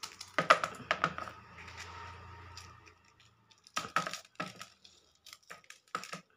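Small knife cutting lengthwise through crisp fresh green chillies, with sharp snapping clicks as the blade splits them and cut pieces drop into a glass bowl; a handful of separate clicks and taps.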